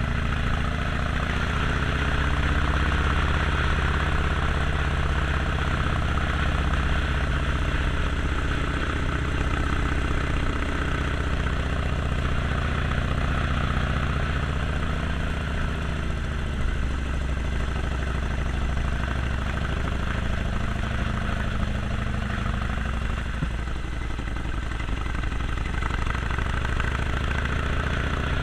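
Harley-Davidson Sportster Forty-Eight's air-cooled 1200 cc V-twin engine running at a steady, unchanging pace, with an even hiss above it.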